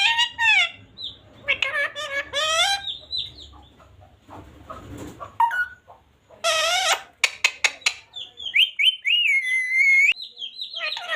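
Parrots calling in quick speech-like chatter, with a harsh squawk about six and a half seconds in, then short whistled glides and a steady held whistle near the end.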